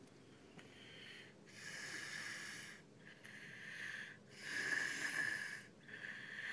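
Snoring with a wheezy whistle on each breath: three louder breaths alternate with quieter ones at an even rhythm. The sleeper is sick.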